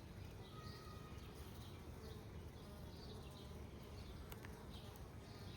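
Honeybees buzzing faintly and steadily around an open hive.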